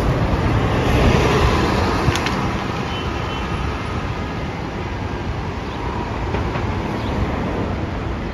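Articulated city bus passing close and pulling away, loudest about a second in and fading as it goes. Steady street traffic runs underneath, with a sharp click about two seconds in.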